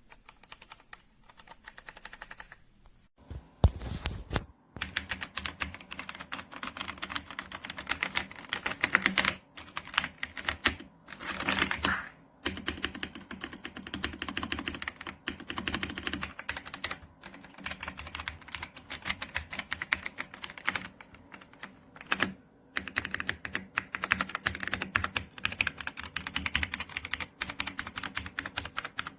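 Fast typing on an AJAZZ AK820 75% mechanical keyboard: a dense, rapid run of key clacks with a few brief pauses.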